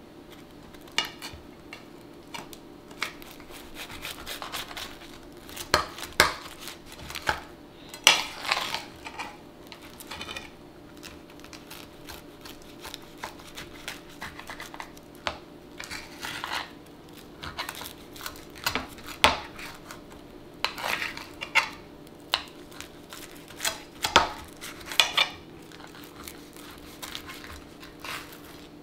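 Kitchen knife cutting a quesadilla on a ceramic plate: the blade knocks and scrapes against the plate in irregular clacks, some ringing briefly. A faint steady hum runs underneath.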